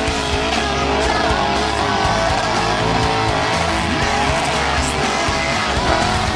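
Guitar-driven background music with a steady bass line.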